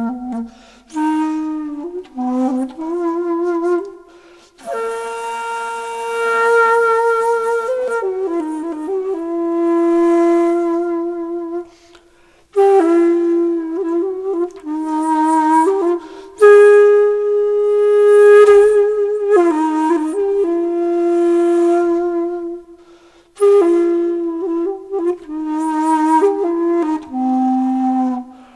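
Background music: a solo flute-like wind instrument playing a slow melody in phrases, with held, wavering notes and short breaks between phrases.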